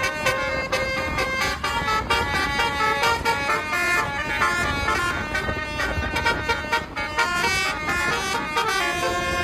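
A bus's musical basuri (telolet) horn playing a tune: held horn notes that change pitch every fraction of a second, over a regular beat.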